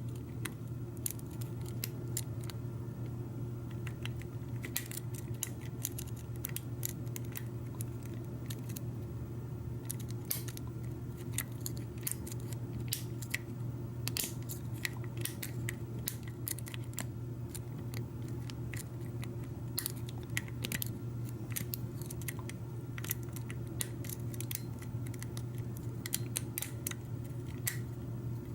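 Irregular small metallic clicks and ticks of a lock pick and tension wrench working the pins of a Schlage F-series knob's cylinder, over a steady low hum.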